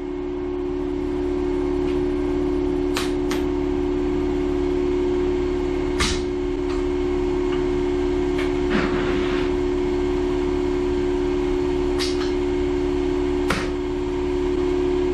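Abrasive blasting inside a blast cabinet: compressed air and glass-bead media hiss steadily from the nozzle onto a rusted steel tractor top-link part, stripping off the rust. A steady hum runs underneath, and a few sharp clicks come about three, six, twelve and thirteen seconds in.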